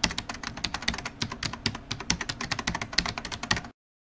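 Rapid, irregular keyboard typing, many keystroke clicks a second, cutting off suddenly near the end.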